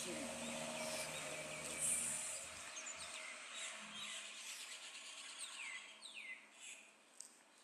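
Small birds chirping: a scatter of short high chirps, with several quick downward-sweeping calls past the middle. A low steady hum underneath cuts out about a third of the way in.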